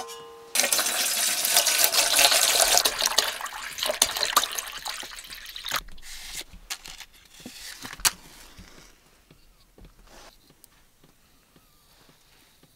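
Water pouring into a metal pot for a few seconds, then tapering off, followed by small handling clicks and a match being struck.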